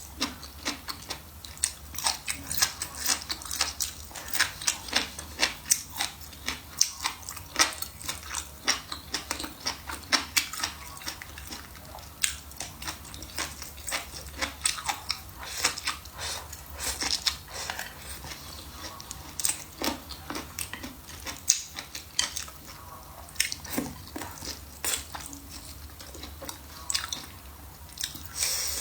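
Close-miked eating: steady chewing and biting with many sharp, irregular wet mouth clicks and smacks, several a second.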